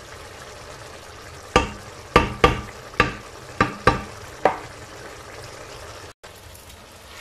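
Tomato and onion sauce bubbling and sizzling in a frying pan as it boils. A wooden spoon knocks sharply against the pan about seven times while it is stirred, starting about a second and a half in.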